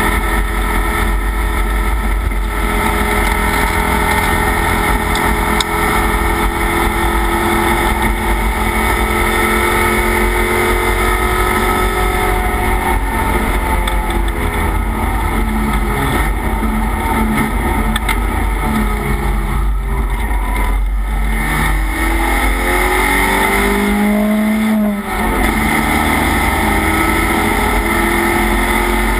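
Race car engine at race pace, heard from inside its stripped, roll-caged cockpit. The engine pitch falls and climbs again several times as the car slows and accelerates, with a short drop in level near the end.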